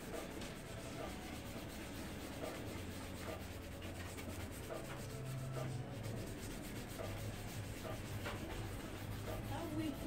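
Toothbrush scrubbing toothpaste over an oxidized plastic headlight lens in rapid back-and-forth strokes, a continuous bristly rubbing that polishes off the yellow haze. A low steady hum sits underneath.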